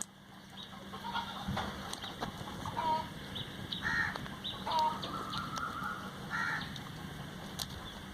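Chickens clucking and calling in short, scattered bursts, with one longer held call about five seconds in.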